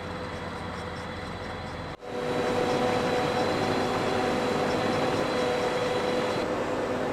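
Carrot harvesting machinery running steadily with a constant hum. The sound cuts about two seconds in and comes back louder, still steady.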